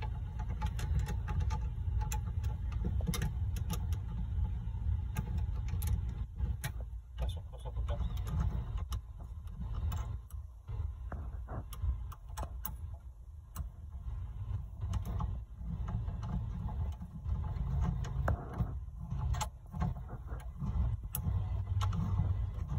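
Scattered light metallic clicks and taps of an Allen wrench and terminal hardware being worked on a car audio capacitor's terminal screws, over a steady low rumble.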